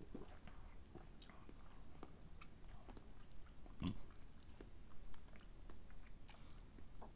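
Faint mouth sounds from someone tasting a sip of canned energy drink, with scattered small clicks and one louder knock about four seconds in.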